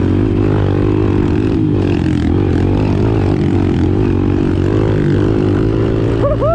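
Kawasaki KLX pit bike's single-cylinder four-stroke engine running steadily under the rider on a dirt track, its pitch wavering a little with the throttle.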